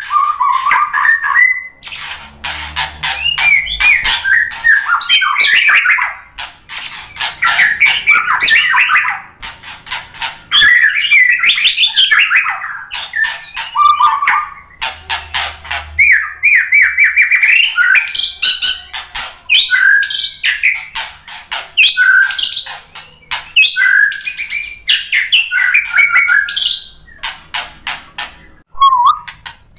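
Male white-rumped shama (murai batu) singing loudly and almost without a break: varied gliding whistled phrases mixed with harsh, rapid clicking and chattering notes, with a few short pauses.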